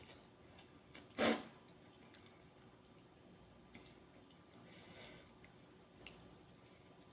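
A person sniffling with a runny nose from very spicy food: one short, sharp sniff about a second in, then a softer sniff around five seconds, with a few small eating clicks.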